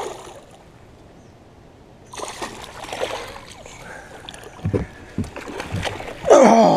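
Water splashing and sloshing at the side of a small boat as a hooked bass thrashes at the surface while it is brought to the landing net, with a few knocks. Near the end comes a short, loud cry from a voice.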